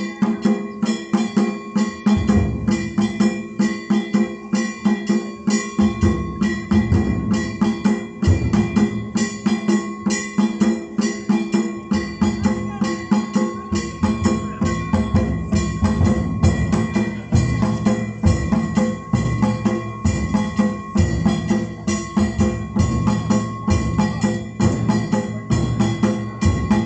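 Japanese festival drum and hand gongs playing a fast, steady rhythm. The gongs ring throughout, and deep drum beats come in about two seconds in.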